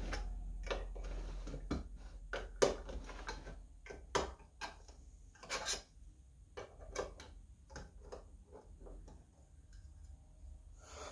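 A metal paint can's lid being pried open with a tool worked around the rim: irregular metallic clicks and taps, a few louder than the rest, as the lid loosens and is lifted off.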